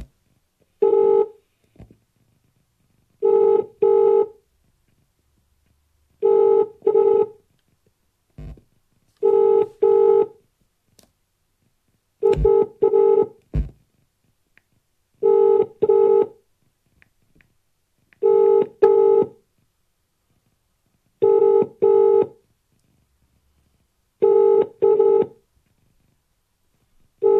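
British telephone ringback tone heard through a phone's loudspeaker: the double 'brr-brr' ring repeating about every three seconds, nine times, as the outgoing call waits unanswered. A few faint knocks fall between the rings.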